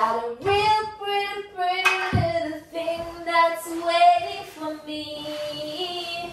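A woman singing unaccompanied, holding long drawn-out notes that step up and down in pitch.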